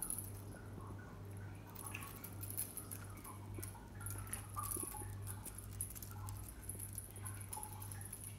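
Faint light rustling and small clicks over a steady low hum.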